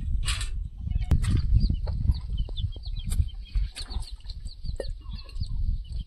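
Chicks cheeping, many short high peeps one after another, over a louder steady low rumble. A single sharp knock about a second in.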